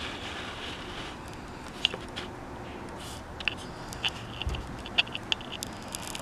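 Handling noise from a handheld camera: scattered faint clicks and taps, with a soft low thump about four and a half seconds in, over a steady room hiss.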